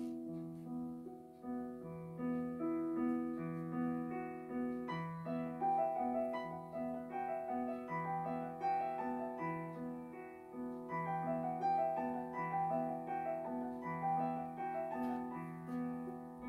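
Background piano music: a gentle melody over a steady, repeating bass pattern.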